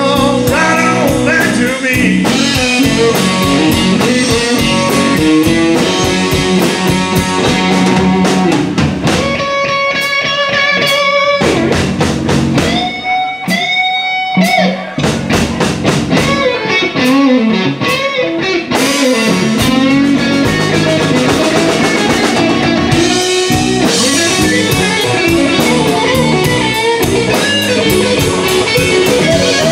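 Live blues-rock band playing an instrumental passage: a Telecaster-style electric guitar plays lead lines with bent, wavering notes over bass guitar and drums. Midway the band drops back for several seconds, leaving the guitar's sustained notes more exposed, then the full band comes back in.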